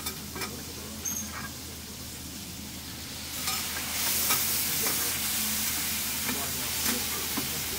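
Food frying and sizzling at a street-stall cook station, with light clicks of utensils. The sizzle jumps much louder about three seconds in and stays loud.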